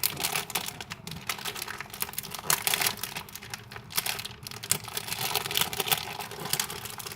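Plastic packaging crinkling and crackling irregularly as it is handled and opened to get a squishy toy out.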